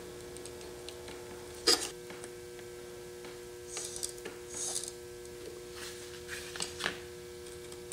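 Faint clicks and light rubbing of small parts being handled while an aluminium C-hub is fitted to an RC truck's front axle, with one sharper click about two seconds in. A steady faint hum underlies it.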